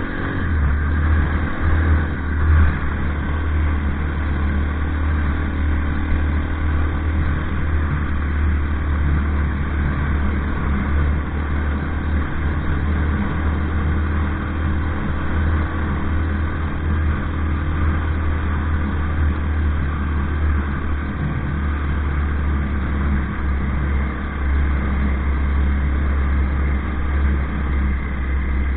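Engine of an off-road vehicle running steadily at an even cruising speed, a continuous low drone that barely changes in pitch.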